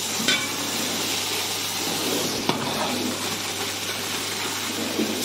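Cooking fat sizzling with a steady hiss in a large hot aluminium pot, with one sharp knock about halfway through. Near the end, dry vermicelli pours into the pot.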